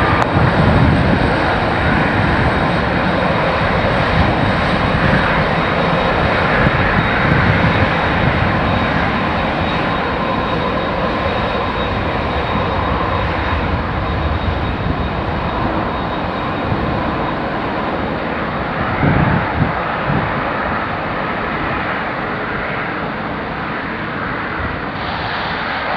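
Boeing 747-400 jetliner's four turbofan engines running steadily at taxi power: a dense jet rush with a thin high whine, slowly getting quieter as the aircraft turns away.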